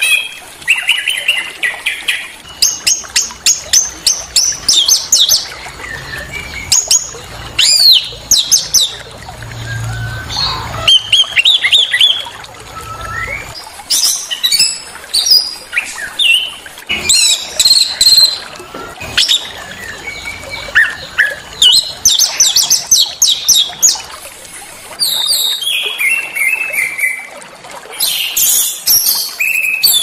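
Small songbirds singing on a bird-song tutor (masteran) recording: a fast, busy run of sharp high chirps and rapid trills mixed with short whistled phrases, broken by brief pauses.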